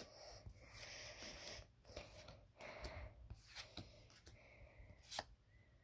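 Faint rustling of Pokemon trading cards being slid and handled, with a few soft taps, one sharper than the rest near the end.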